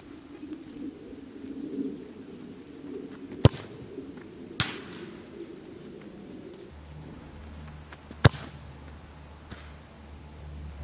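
Outdoor background with a low steady drone that gives way to a deeper hum about two-thirds of the way through. Two sharp, loud clicks stand out, a third of the way in and again near the end, with a softer knock in between.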